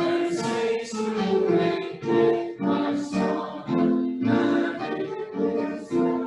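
A congregation singing a hymn together with instrumental accompaniment. A new sung phrase starts right at the beginning, after a brief pause.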